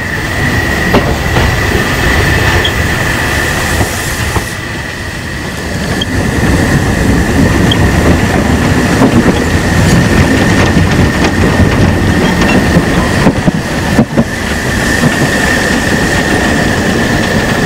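Narrow-gauge steam train hauled by a Saxon IV K locomotive running along the line: a steady rolling rumble with wheels clicking over the rail joints, and a continuous high-pitched wheel squeal throughout.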